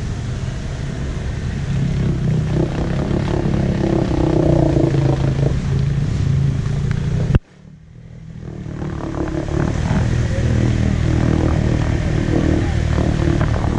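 ATV engine running under load as the quad pushes through deep muddy water, getting louder over the first few seconds. About halfway through, the sound cuts out abruptly and then fades back in.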